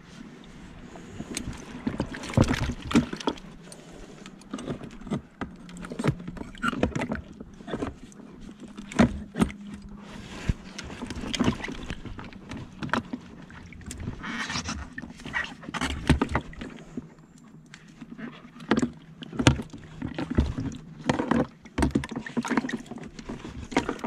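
Irregular knocks, clicks and scrapes inside a hollow plastic cooler box as a soft-shelled turtle is grabbed with long metal gripping pliers. The tool and the turtle bump against the cooler's walls and floor.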